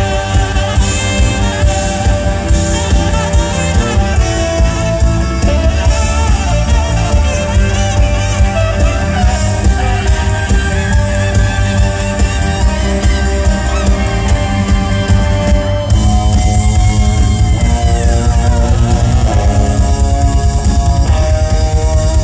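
Live jazz-rock band: tenor saxophone playing a melody over electric guitar, bass guitar and drums. About sixteen seconds in the band gets louder and fuller.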